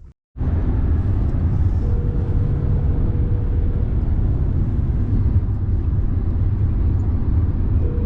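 Steady low road and engine rumble inside a moving car, with a faint steady hum that comes and goes.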